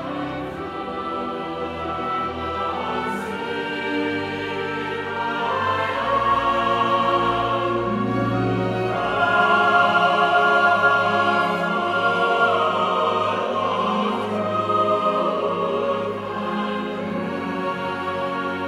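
Classical choral music: a choir singing long held chords, swelling louder toward the middle.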